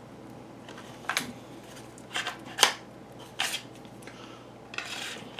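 A KA-BAR knife being worked into a hard Kydex sheath: several short scrapes and clicks of blade and handle on hard plastic, with a longer scrape near the end.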